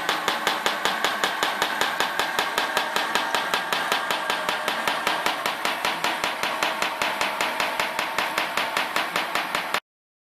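A radio-controlled scale construction machine model running with a rapid, regular mechanical clicking, about four clicks a second, which stops abruptly near the end.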